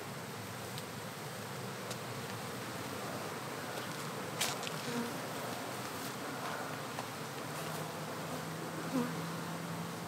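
Swarm of honeybees buzzing as a steady dense hum while their open-air hive is taken apart. A steadier low hum joins about three-quarters of the way through, and a few sharp clicks sound in the middle and near the end.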